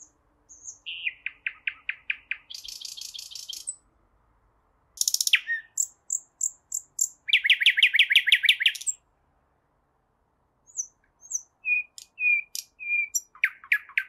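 Nightingale singing: three phrases separated by short pauses, each made of quickly repeated notes, the first ending in a fast buzzy trill.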